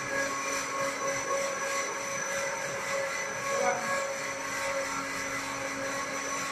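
Electrical conduit pipe making machine running: a steady mechanical hum with several held tones over a constant hiss.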